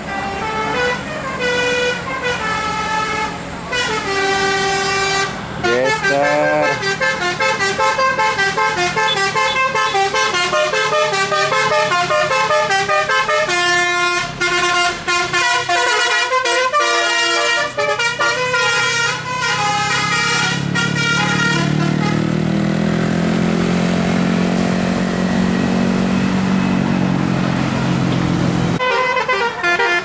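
A tour bus's musical 'telolet' air horn playing a fast melody of short stepped notes for about twenty seconds. The bus's diesel engine then passes close by, its note sweeping, and near the end another burst of horn notes begins abruptly.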